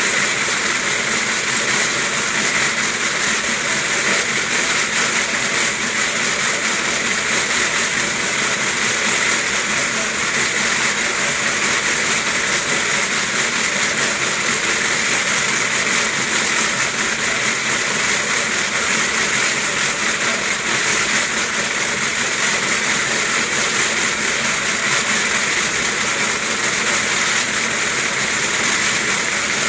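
Wooden slat mill running steadily under a trotting dog, a continuous, even mechanical noise from the turning slats.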